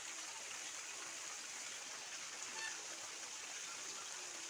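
Steady hiss with a few faint, short peeps from Muscovy ducklings and chicks.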